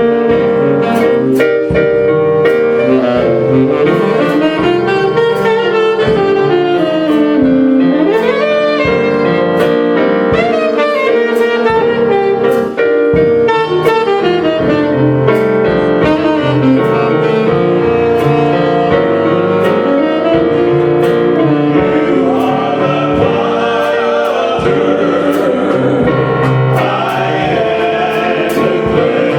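Saxophone playing a melodic solo over a band accompaniment with a held chord, during an instrumental break in a worship song.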